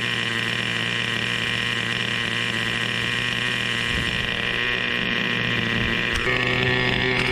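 Hirobo Shuttle RC helicopter's small two-stroke glow engine running steadily on the ground with the main rotor turning; about six seconds in the engine note shifts to a new pitch.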